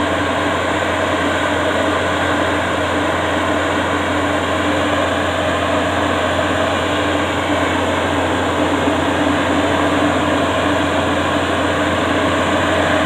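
Yanmar YH850 combine harvester's diesel engine running steadily at close range with a constant hum as the crawler-tracked machine moves slowly forward.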